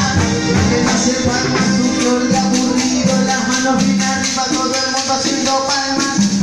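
Live cumbia band playing an instrumental passage: keyboard melody lines over a steady percussion beat of about four strokes a second.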